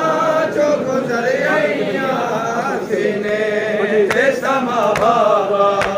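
A group of men chanting a noha, a Shia lament, with drawn-out sung lines. About four seconds in, a few sharp slaps of chest-beating (matam) come in over the chant.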